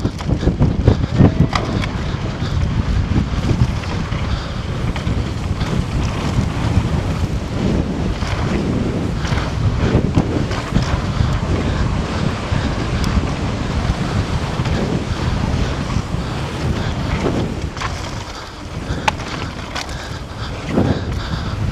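Wind buffeting an action camera's microphone at speed on a mountain bike descent, mixed with the rumble of knobby tyres on a dusty dirt singletrack and scattered clicks and rattles from the bike. The rush eases briefly about three seconds before the end.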